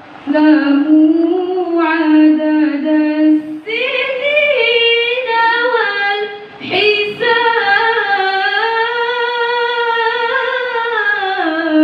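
A woman reciting the Quran in the melodic tilawah style into a microphone, drawing out long ornamented notes. A lower phrase gives way a few seconds in to higher phrases, the last held for several seconds before falling away at the end.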